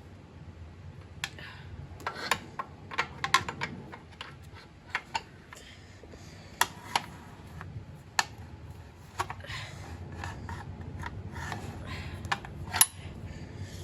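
Hand tools clicking and knocking against metal in an irregular run of sharp taps as a seat mounting bolt on a motorcycle frame is worked loose.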